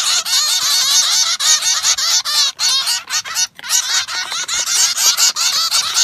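A flock of small birds chirping all at once: a dense, continuous chatter of quick, high, overlapping chirps.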